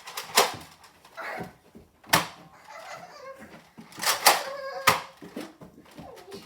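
A handful of sharp clacks and knocks at irregular intervals, with faint children's voices in between: Nerf blasters being primed and fired during play.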